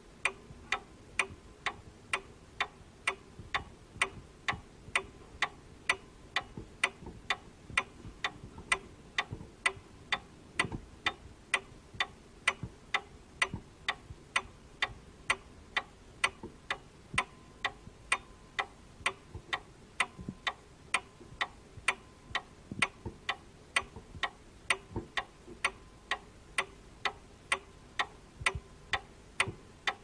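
Table clock ticking: a steady run of evenly spaced, sharp ticks.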